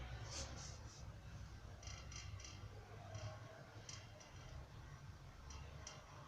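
A series of faint, irregular light clicks, about a dozen, over a low steady hum.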